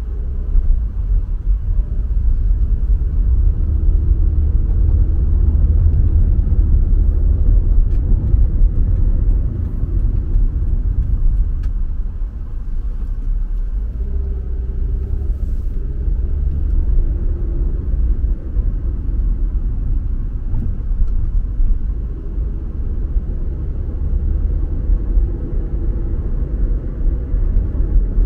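Car being driven on the road: a steady low rumble of tyre and engine noise, with faint hums coming and going, easing slightly about twelve seconds in.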